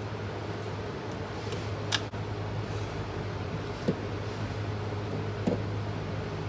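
Light clicks of a spring hose clamp and cable-type clamp pliers being worked onto a heater hose, one sharp click about two seconds in and two fainter ones later, over a steady low hum.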